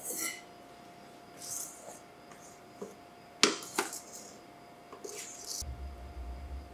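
Utensil scooping meringue into a stainless steel mixing bowl: light scrapes and taps against the metal, with one sharp click about three and a half seconds in. A low rumble starts near the end.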